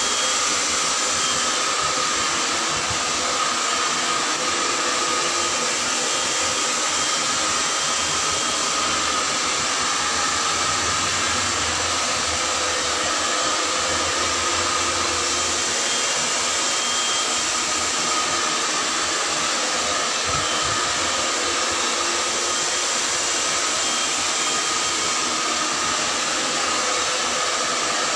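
Handheld hair dryer blowing steadily on wet hair: a constant rushing hiss with a faint steady whine from its motor.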